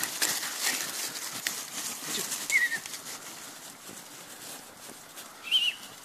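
Dry fallen leaves rustling and crackling as a puppy roots through them. Then come two short, high, wavering squeaks, one about two and a half seconds in and a louder one near the end.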